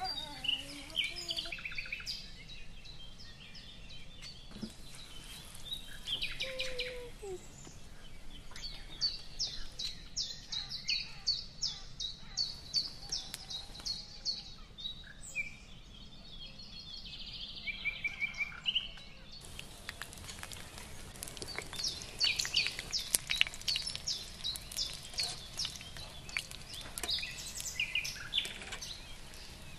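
Small birds chirping and twittering in quick runs of notes, over the fine crackle of fritters deep-frying in hot oil. The crackle grows denser in the second half.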